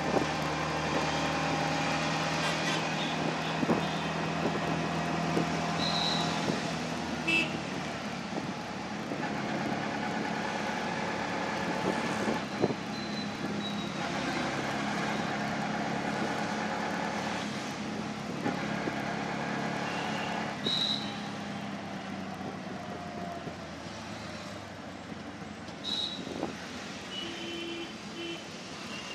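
Auto-rickshaw engine running as it rides through city traffic, heard from inside the open cabin, its pitch rising and falling with speed. Several short horn toots from the surrounding traffic sound during it.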